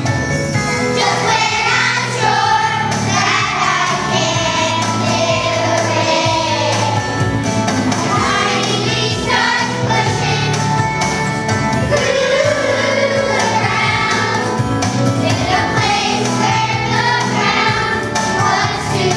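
A choir of young children singing a song together over a steady musical accompaniment.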